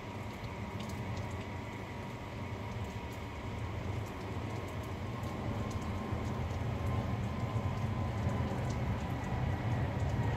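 Rain falling steadily, with scattered ticks of single drops, over a low rumble that grows louder from about four seconds in.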